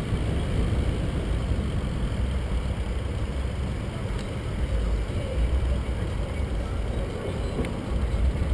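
Low, steady rumble of wind buffeting an action camera's microphone while riding in road traffic, mixed with the noise of the surrounding vehicles.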